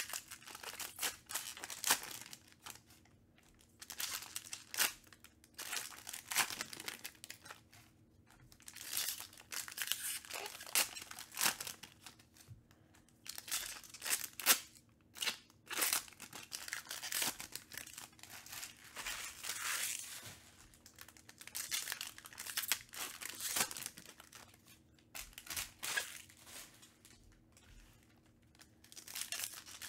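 Foil wrappers of Panini Prizm baseball card packs torn open and crinkled by hand, in repeated bursts with short pauses between.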